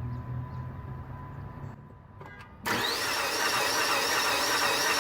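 Chrysler PT Cruiser's starter cranking the engine, starting about two and a half seconds in after a few clicks, with the engine spinning over fast and even with no compression: the mechanic takes this for a broken timing belt, since the cams are not turning.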